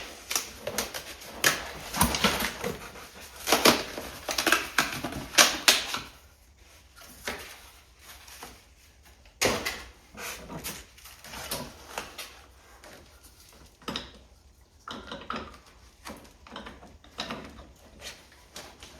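Packaging being rummaged through and unwrapped by hand: a busy stretch of rustling and crinkling for the first few seconds, then scattered rustles, clicks and knocks as parts are handled.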